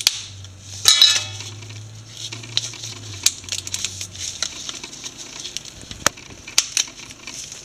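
Blue crab shells clicking and knocking against one another and against a steel pot as gloved hands pick through the scalded crabs, with a few sharp clinks.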